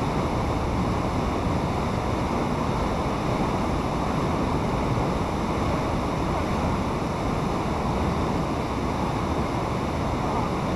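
Fast-flowing water rushing steadily through a channel.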